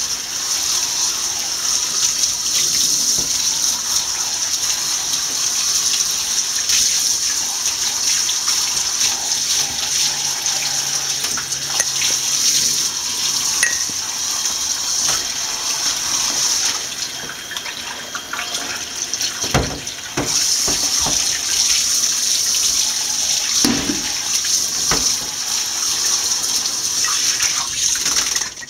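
Water from a handheld shower sprayer running steadily over a wet cat's coat in a bathtub, rinsing out the final shampoo. The spray eases off for a few seconds about two-thirds of the way through, comes back, and stops at the very end.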